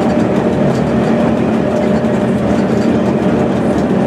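Pilatus Railway electric rack railcar climbing the mountain, heard from inside the car: a loud, steady running rumble with a steady whine over it.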